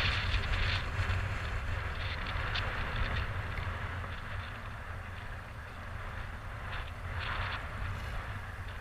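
Wind buffeting a kayak-mounted action camera's microphone, a steady low rumble, over choppy water splashing against the kayak's hull; the splashing swells near the start and again about seven seconds in.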